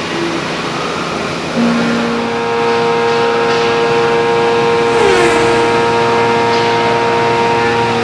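CNC mill's end mill slotting Ampco bronze at 70 inches per minute under flood coolant. Coolant spray hisses, and about one and a half seconds in a steady whine from the cut sets in and holds, with a brief falling pitch near the middle.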